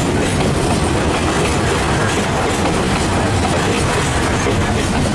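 Container freight train's flatcars rolling past close by: a steady, loud rumble of steel wheels on the rails with repeated clickety-clack from the wheels crossing rail joints.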